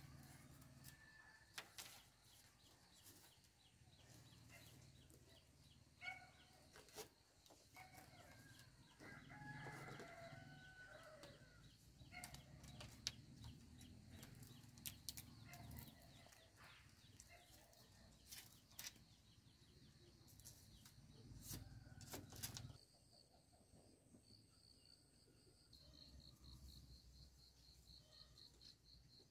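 Faint chickens clucking, among scattered light taps and clicks. About three-quarters of the way through, an insect starts a steady, high-pitched pulsing trill.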